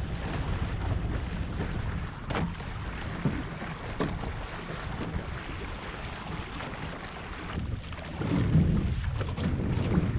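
Wind buffeting the camera microphone over water rushing past the hulls of a Weta trimaran under sail, with a few short sharp slaps about two and four seconds in.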